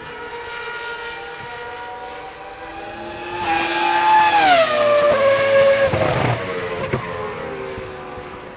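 Cosworth 3.0-litre V10 of the Toro Rosso STR1 Formula 1 car passing at high revs. The engine note climbs and grows louder as the car approaches, then drops sharply in pitch as it goes by about halfway through and fades away. There are a couple of sharp cracks as it leaves.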